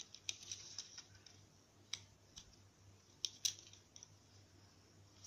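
Faint clicks and crinkles of a card tag and its packaging handled by fingers: a quick cluster in the first second, a single click about two seconds in and a sharper pair a little past three seconds.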